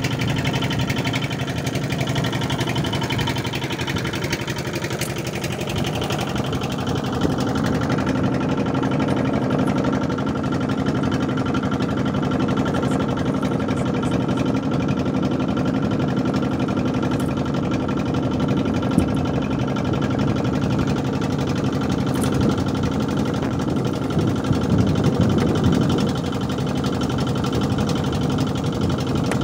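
A boat engine running steadily at a constant speed, an unbroken low drone that does not change pitch.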